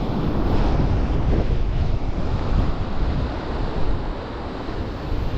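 Strong, gusty wind buffeting the microphone, with rough surf breaking on the shore behind it.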